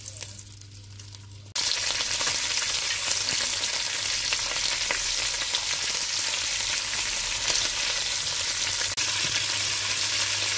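Marinated Iberian pork ribs sizzling and crackling in hot olive oil at high heat in a large pot, searing so the ribs are sealed. The sizzle is quieter at first with only a couple of pieces in the pot. About a second and a half in it jumps suddenly much louder, with a full pot of ribs frying in a dense, steady hiss with fine crackles.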